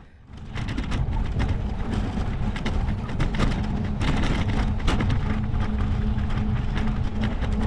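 Wind buffeting the microphone while riding a bicycle: a steady low rumble, with many small clicks and rattles from the ride.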